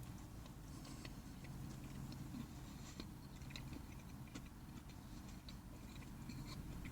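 Faint chewing of a bite of a bacon chicken croissant sandwich, with soft scattered crunches and mouth clicks.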